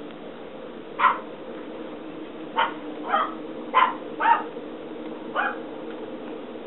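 Yorkshire terrier puppies about four and a half weeks old giving six short, high yips at irregular intervals.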